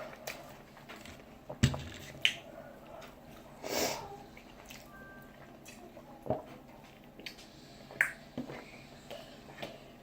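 Quiet eating sounds: scattered small mouth clicks and smacks from chewing, with a short noisy rush of breath about four seconds in.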